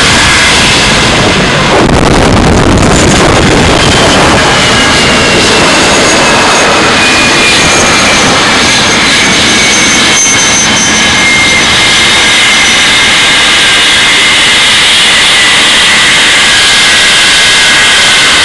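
English Electric Lightning F6's twin Rolls-Royce Avon turbojets running very loud and steady, a dense jet noise with a high whine that slowly falls in pitch from about four seconds in.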